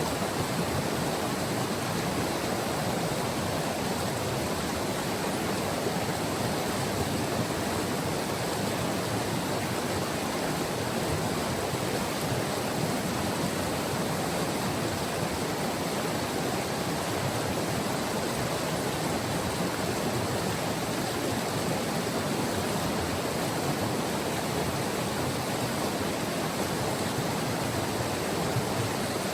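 Glacial river rushing over its bed: a steady, even rush of flowing water with no breaks or changes.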